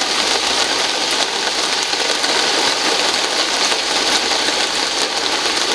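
Steady rain falling on garden trees and grass, an even hiss.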